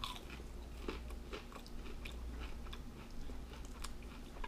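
A person chewing a bite of an oven-baked Mac n' Cheetos snack, its crisp coating crunching in short, irregular crackles.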